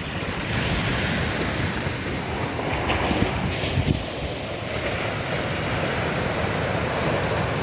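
Ocean surf washing and breaking, with wind buffeting the microphone in low gusts.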